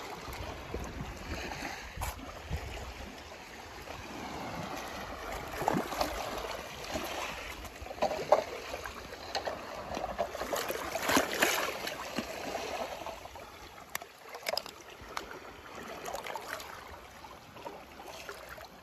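Water sloshing and splashing in small, irregular bursts as toy cars are moved about in it.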